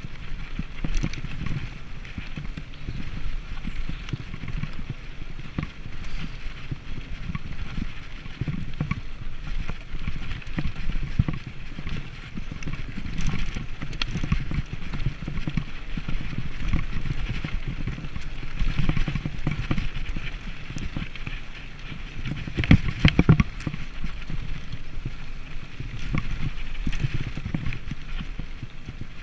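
Mountain bike ridden fast over a dirt forest trail: a continuous rumble of tyres on the ground with the bike rattling and clattering over bumps, and a cluster of harder knocks about three quarters of the way through.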